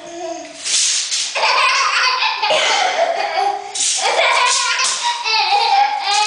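Baby laughing hard in several long bouts of belly laughter, set off by a tape measure being pulled out and let back in front of her.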